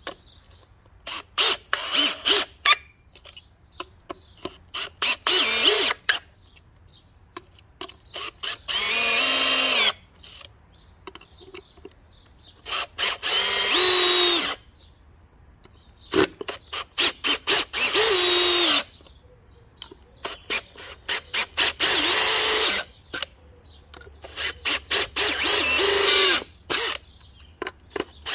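Makita XFD13 18V brushless cordless drill driver driving screws into a wood block. It goes in short stuttering trigger pulses and in several longer runs of a second or two, each of which stops suddenly.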